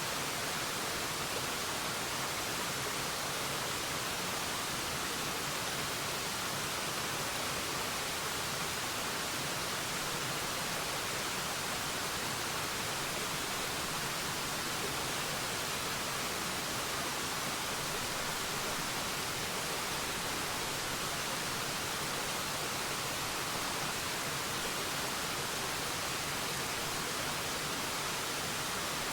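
Forest waterfall: water falling and splashing in a steady, even rush with no breaks.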